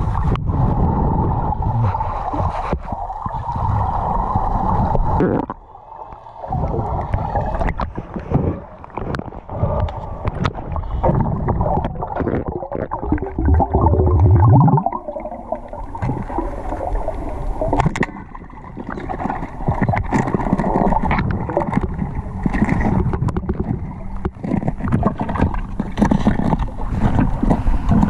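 Muffled underwater sound heard through a waterproof camera housing: water swirling and gurgling, with many scattered sharp clicks and knocks. A louder, deep bubbling gurgle comes about halfway through.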